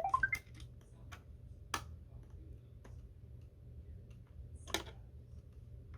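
Scattered sharp clicks and taps of plastic Roomba robot-vacuum parts being handled and fitted together, two louder clicks among them, about two seconds and five seconds in. A short rising pitched sound comes right at the start.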